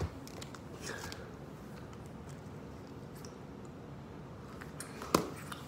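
Quiet room tone with a few faint ticks, and one sharp knock about five seconds in.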